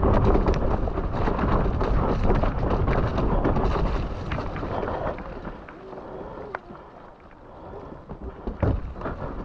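Mountain bike riding fast down a wet, muddy forest trail: wind buffeting the microphone and tyres rumbling over the mud, with many small rattles and knocks from the bike over bumps. The noise drops off about five seconds in, and a single sharp knock comes near the end.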